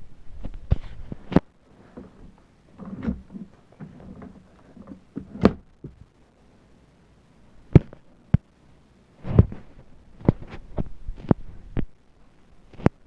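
Household objects being handled and set down while tidying a room: about a dozen irregular knocks and thuds, with soft rustling between them.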